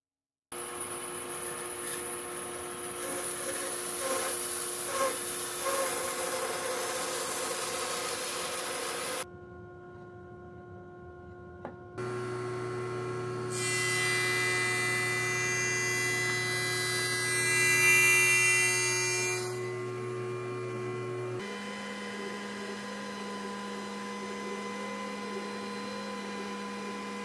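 A series of shop machines running. Partway through, a jointer runs with a steady hum and cuts a board fed over it with a push block, its cutting noise lasting about six seconds. Near the end, a Glowforge laser cutter runs with a steady hum as its head cuts a wavy line, after an earlier unidentified machine sound.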